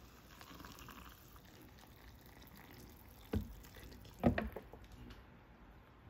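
Hot water pouring from a kettle into a paper cup of instant ramen, a soft steady pour, with two knocks about three and four seconds in.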